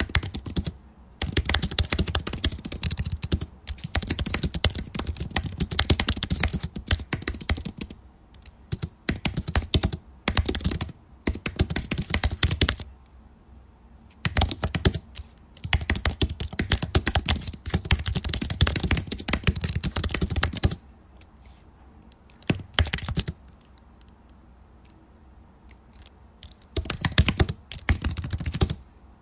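Typing on a computer keyboard: fast runs of keystrokes broken by short pauses, with a longer stretch of only scattered keystrokes past the middle before a last quick run.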